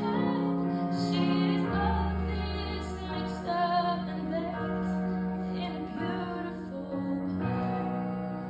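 A girl singing into a microphone, amplified through a stage speaker, with a live band accompanying her: long held notes over a steady bass line.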